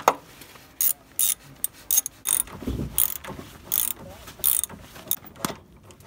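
Hand ratchet wrench clicking in short, irregular bursts as it is swung back and forth on a front suspension bolt, with a low thump near the middle.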